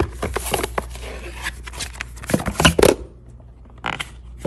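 Paper and thin cardboard rustling and scraping as a white card gift box is opened and handled: a dense flurry of crinkles and scrapes for about three seconds, then two brief rustles near the end.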